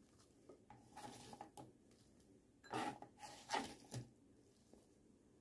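Faint rustling and light knocks of raw potato strips being put onto cut squash strips in a bowl. The handling grows louder from a little under three seconds in, with a few sharper knocks around three and a half to four seconds.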